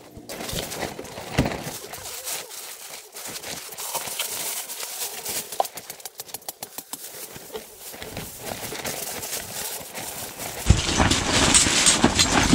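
Gusty wind with irregular clicks, knocks and flapping. Near the end a strong gust buffets the microphone with a loud rush.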